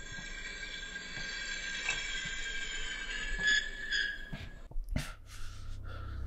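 A high-pitched, many-toned screech starts suddenly and holds for nearly five seconds before cutting off abruptly. A click follows, and a low, steady drone begins near the end.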